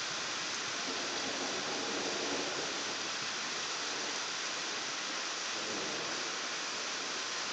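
Steady rain falling, an even hiss with no clear thunder rumble.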